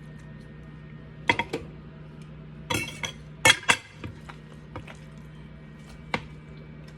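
Dishes and cutlery clinking and clattering in a few short bursts, about a second in, around three seconds in, and once more near the end, over a steady low hum.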